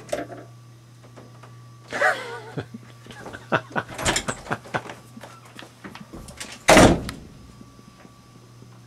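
A door being handled, with a run of clicks and knocks and then one loud bang about seven seconds in as it is shut. A steady low electrical hum runs underneath.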